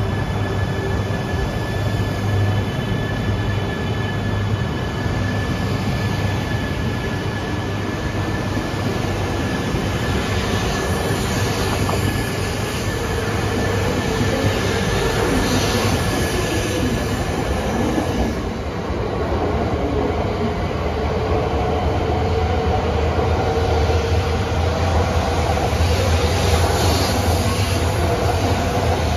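E3-series and E2-series Shinkansen sets, coupled together, pulling out of the station and gathering speed past the platform: steady rolling and running noise with a low hum and a high steady whine. About two thirds of the way in, a motor whine rises slowly in pitch as the train accelerates.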